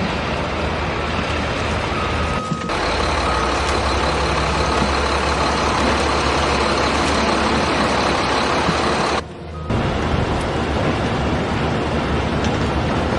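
Heavy vehicle engine running steadily, like a truck or construction machine, with the sound cutting out briefly twice.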